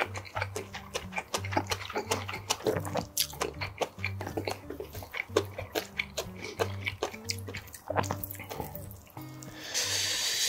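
Background music with a steady low beat, over close-miked eating sounds: many short wet clicks of chewing cold seaweed bibim noodles. A louder hiss comes near the end.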